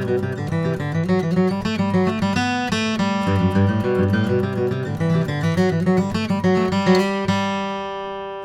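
A 1977 Martin D-45 dreadnought acoustic guitar, with a Sitka spruce top and East Indian rosewood back, played solo in a mix of picked notes and strummed chords. Near the end a chord is left to ring and fade.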